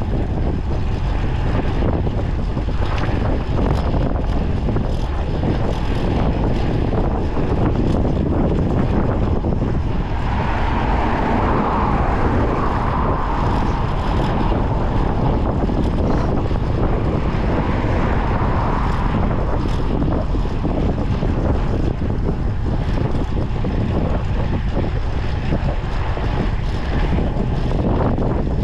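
Wind buffeting the microphone: a steady low rumble throughout, with a higher hum coming through for several seconds in the middle.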